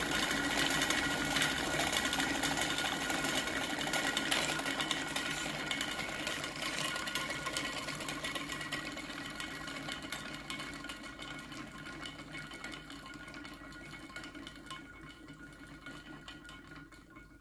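A homemade wooden gear train driven by an unwinding clock mainspring, with a large copper-sheet fan governor spinning on top, makes a fast whirring rattle of gear teeth. It fades steadily as the spring runs down and the governor slows the mechanism to a stop.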